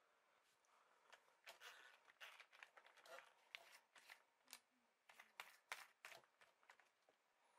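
Faint, irregular small clicks and taps as a spent rifle cartridge case is handled.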